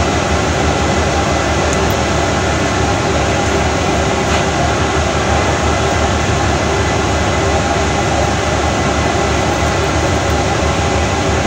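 Steady loud rumble and rush of a ship under way: engine and ventilation machinery noise carried on the open deck, unchanging throughout.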